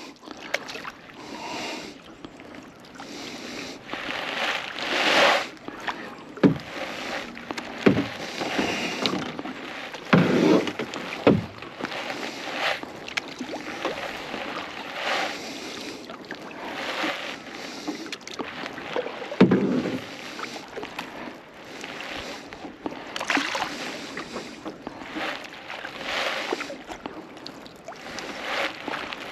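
Double-bladed kayak paddle dipping and pulling through lake water, a stroke about every second and a half, each one a swish and splash with water running off the blade. A few short, lower sounds stand out among the strokes, the loudest about two thirds of the way through.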